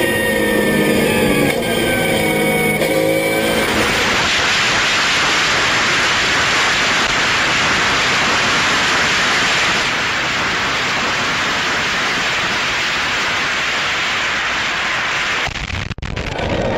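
Porsche race car's flat-six engine running at high revs, its pitch shifting up and down for the first few seconds. About four seconds in, a loud steady rushing noise takes over and covers it until near the end, when the engine is heard again after a brief cut-out.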